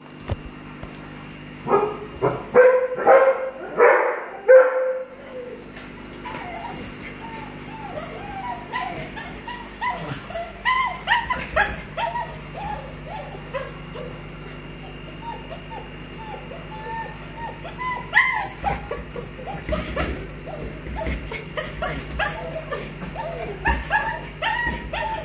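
A litter of White Swiss Shepherd puppies yelping and whining, with a louder burst of yelps and barks about two seconds in, then many short, high squeaks and whines as they play.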